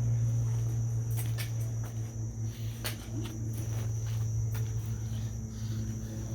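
Crickets trilling steadily over a low, steady hum, with a few sharp clicks scattered through.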